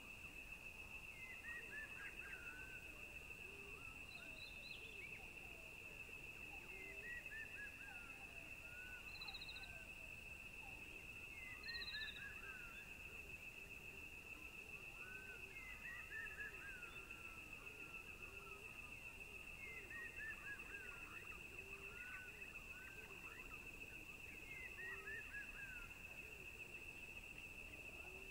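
Faint outdoor nature ambience: a steady high-pitched insect trill, with short runs of falling bird chirps about every four seconds.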